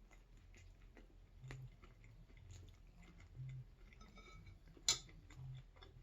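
Close-up chewing of food, with soft jaw thumps about once a second and small wet mouth clicks. A sharp click comes a little before five seconds in.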